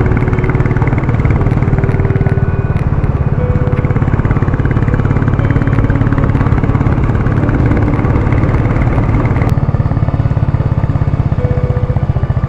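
Royal Enfield Classic 350's single-cylinder engine running steadily while the bike is ridden, a dense low beat of its firing heard from on board.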